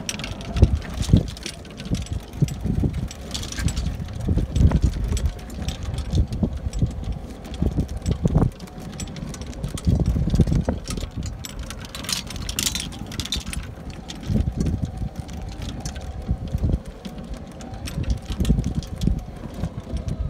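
Wind buffeting a phone microphone in irregular low rumbling gusts, with a faint steady hum underneath.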